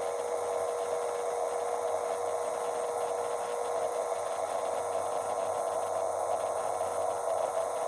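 Steady machine noise with one constant mid-pitched tone running through it, unchanging throughout.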